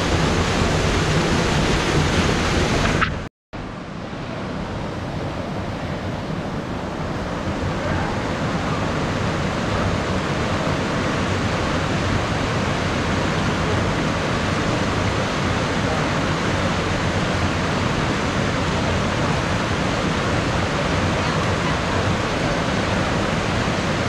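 Fast-flowing creek water rushing over rocks. It starts as a small waterfall pouring between boulders, drops out briefly about three seconds in, then resumes as the steady rush of rapids.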